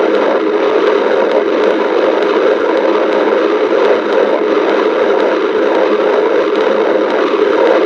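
A hungry stomach growling: a loud, steady rumbling gurgle without pause.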